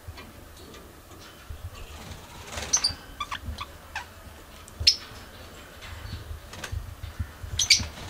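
Pet budgerigars chirping in short, scattered calls and clicks, busiest about three seconds in, with a sharp call around five seconds and another cluster near the end.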